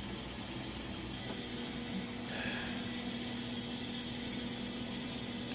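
Quiet room tone: a steady hiss, with a faint low hum coming in about a second in.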